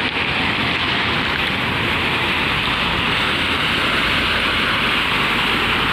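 Steady hiss of car tyres running through water on a flooded road, a rain-like wash of spray from passing traffic.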